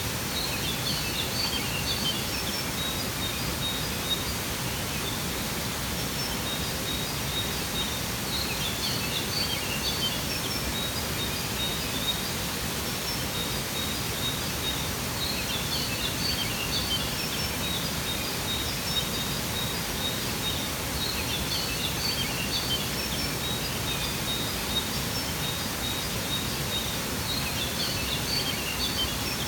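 Steady rush of a waterfall with birds singing over it: a burst of high chirping comes back about every six seconds, and a thin high tone runs in the gaps between the bursts.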